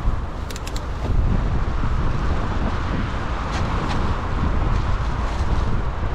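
Wind buffeting the microphone over the rumble and rattle of mountain bikes riding fast over a dirt trail. A few sharp clicks and rattles come about half a second in and again around four seconds in.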